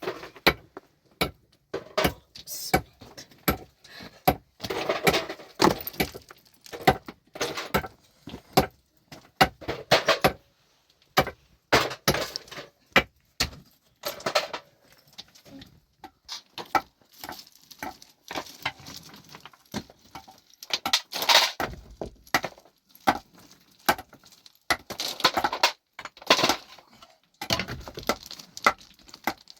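Stones knocking and clinking against each other and against hand tools, in irregular sharp strikes, with several longer scraping, clattering passes of about a second each as rock and rubble are broken up and shifted.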